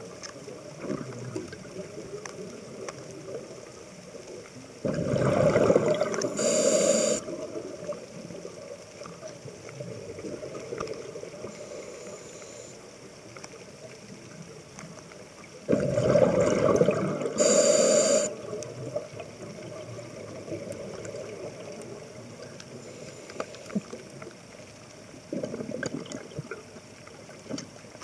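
Scuba diver breathing through a regulator: two full breaths about eleven seconds apart, each a rush of exhaled bubbles and a brighter hissing inhale, with a shorter burst near the end. Steady underwater background noise runs between the breaths.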